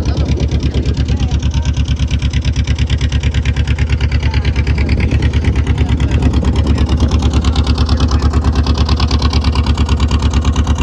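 Boat engine running steadily, with a fast, even thumping pulse and a deep hum.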